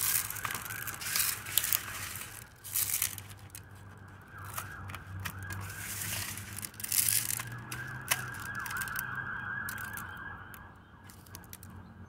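Loose bird seed rustling and crunching as a peanut-butter-coated pine cone is rolled and pressed into it in an aluminium cake pan. A siren sounds through it, with a rapid rising-and-falling wail clearest in the middle, and things grow quieter near the end.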